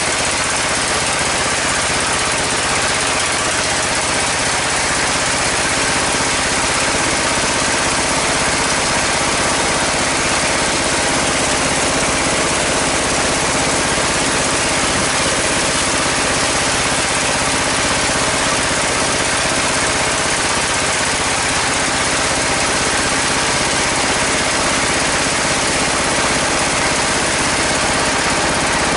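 Engine-driven sawmill band saw running steadily at a constant pitch, with no change in speed or load.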